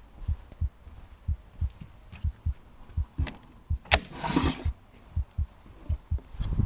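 An unidentified low, rhythmic thumping, about three beats a second, like a heartbeat: the strange noise in the garden. About four seconds in there is a sharp click, then a short rustling burst.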